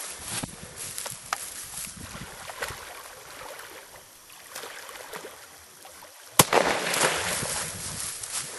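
Water sloshing and lapping around a drifting boat, then about six seconds in a single sharp gunshot, the shot that finishes off a wounded beaver in the water, followed by a few seconds of louder noisy sloshing.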